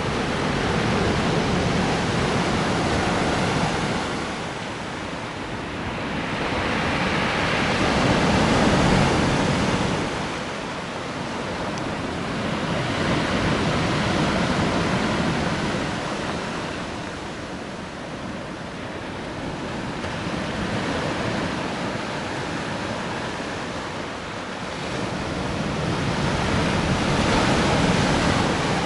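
Black Sea surf: waves breaking and washing up the shore, the rush swelling and fading about every six seconds.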